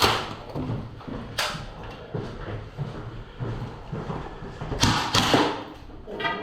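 A few sharp knocks or cracks, each with a short echo: one at the start, another just over a second later, and two close together about five seconds in.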